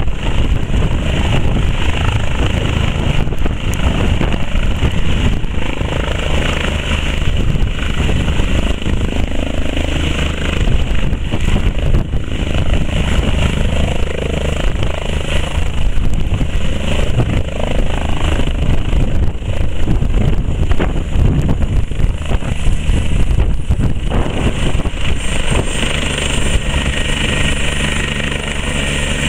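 Eurocopter EC120 Colibri helicopter's single-turbine engine and rotor, loud and continuous with a rapid chopping beat, as it descends and lands. Near the end, once it is on the ground, the sound settles into a steadier hum.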